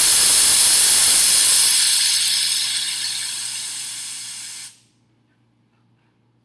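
A can of compressed air (gas duster) spraying in one long blast: a loud, steady hiss that slowly weakens and then cuts off suddenly a little under five seconds in. As the gas expands, the can is getting colder.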